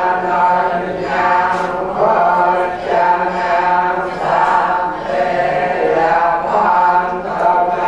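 A group of Cambodian Buddhist laymen and novice candidates chanting together in unison into a handheld microphone, a continuous sing-song recitation in phrases with short dips between them.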